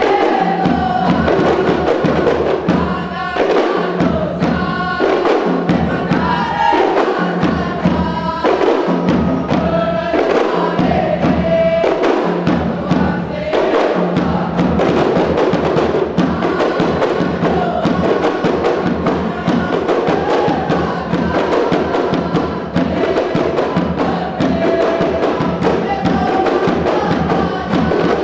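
Music with a group of voices singing over steady hand percussion.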